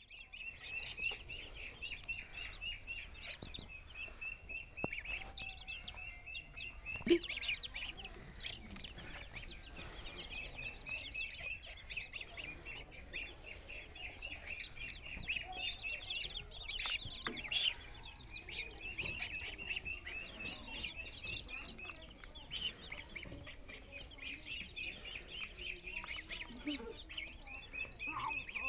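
A brood of chicks and ducklings peeping, a continuous stream of rapid, high-pitched peeps with a few louder calls now and then.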